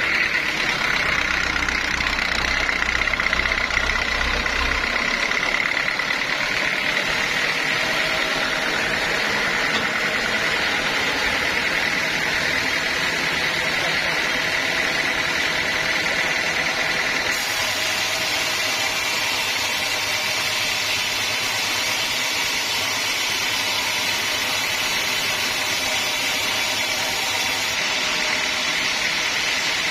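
Sawmill machinery running steadily: an engine drone with a constant high whine, growing brighter and hissier for a stretch past the middle.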